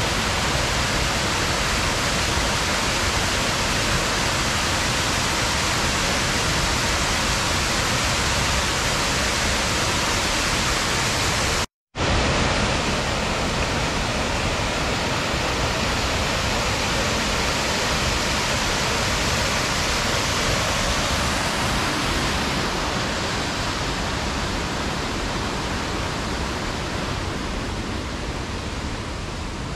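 Mountain waterfall or cascade rushing steadily, broken by a brief silent gap about twelve seconds in, then growing gradually fainter near the end.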